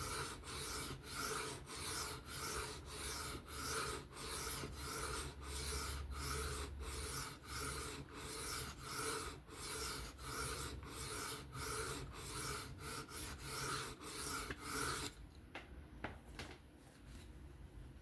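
Folding-knife blade being stroked back and forth across a sharpening stone under light pressure, an even rasping at about two strokes a second. The strokes stop about three-quarters of the way through, leaving a few light clicks.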